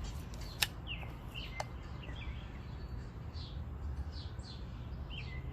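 Small birds chirping repeatedly in short calls over a steady low rumble, with a sharp click about half a second in and another a second later.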